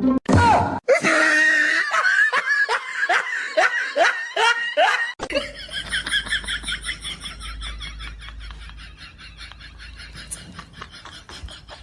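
A person laughing hard in a run of repeated bursts. About five seconds in it cuts to a fainter, quicker pulsing laugh that fades away.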